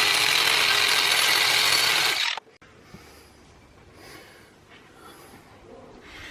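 Hand-held power tool grinding down the curbed rim of an alloy car wheel, running steadily with a high whine and stopping suddenly about two and a half seconds in. Faint handling noises follow.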